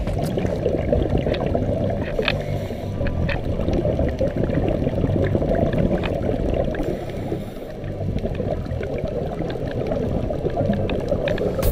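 Underwater sound through a camera's waterproof housing: a dense, muffled rumble and burble of scuba divers' exhaled bubbles, with scattered sharp clicks and crackles. It dips briefly about two-thirds of the way through.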